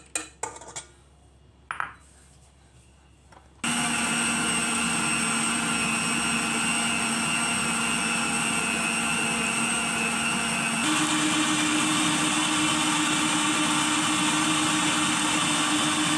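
A few light taps, then a stand mixer's motor switches on about three and a half seconds in and runs steadily with a hum, beating an egg into choux pastry dough with its flat beater. About eleven seconds in it steps up to a higher speed, with a higher, slightly louder hum.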